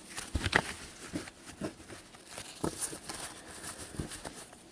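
Playing cards being gathered and handled by gloved hands: scattered light taps, flicks and rustles.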